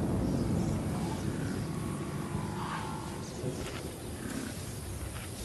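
Growls and grunts from a lion cub and a Cape buffalo at close quarters, over a steady low rumble.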